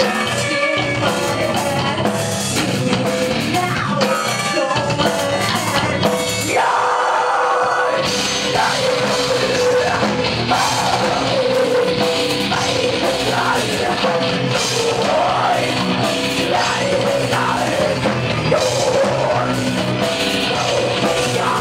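Metal band playing live: distorted guitars, drum kit and a female singer. About a third of the way in, the bass and drums drop out for a moment and then the full band comes back in.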